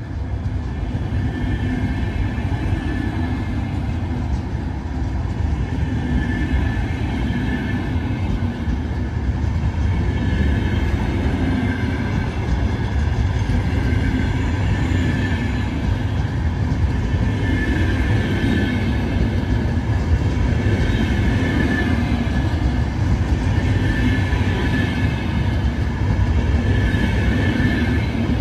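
A VR double-deck Intercity night train rolling past along the platform as it pulls out: a steady rumble of wheels on rail that grows louder over the first few seconds.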